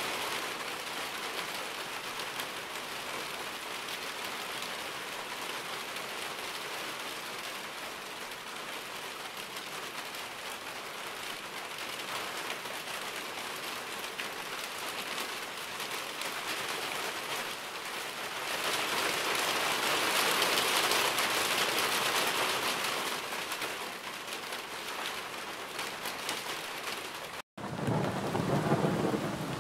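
Steady rainfall, an even hiss of drops that swells louder for a few seconds past the middle. Near the end it cuts out for a split second and a different, deeper and more uneven rain recording begins.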